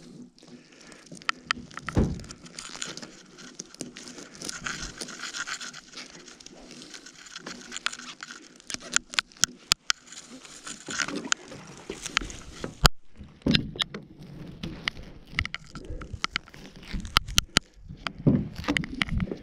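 Nylon gill net being handled by gloved hands as fish are picked from the mesh and the net is paid back over the bow: rustling and scraping with many sharp clicks, and a few thumps, the loudest about 2 seconds in and near the end.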